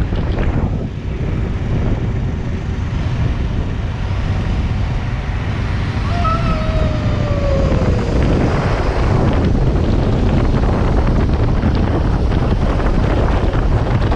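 Wind buffeting the microphone of a moving motorcycle, with the engine and road noise running underneath. A short falling whine passes about six seconds in.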